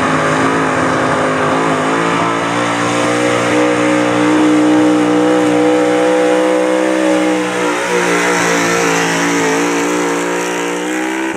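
Big-block V8 engine of a square-body Chevy pulling truck running at full throttle under heavy load as it drags a weight-transfer sled. The engine note is held high and steady, with a brief waver about two seconds in.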